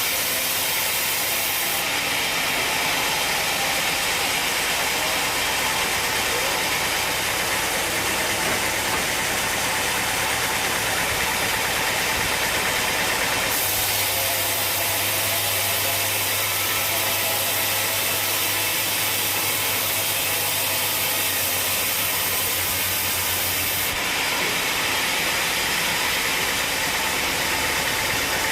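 Sawmill machinery running with a loud, steady mechanical noise whose tone shifts abruptly a few times, with a low hum added through the middle stretch.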